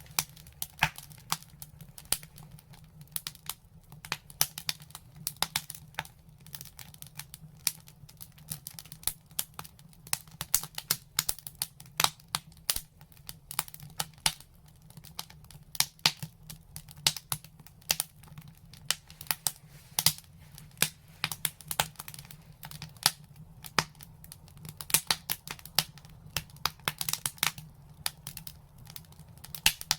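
Wood fire crackling: a dense, irregular run of sharp snaps and pops, several a second, some louder than the rest.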